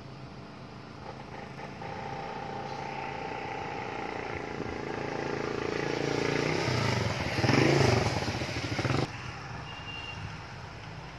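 A passing vehicle's engine, growing louder over several seconds and dropping in pitch as it goes by, then cutting off suddenly about nine seconds in.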